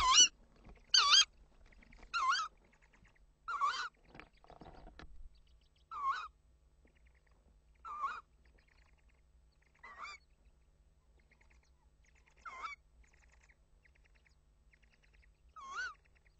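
Tawny owl giving a series of short, wavering calls, about nine in all, spaced further apart as they go on, picked up close inside the nest box. There is a soft rustle about four seconds in.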